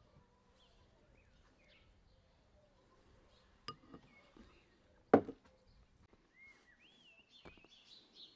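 Small birds chirping in the background, with a short run of calls near the end. Two sudden knocks cut through, one about three and a half seconds in and a much louder one about five seconds in.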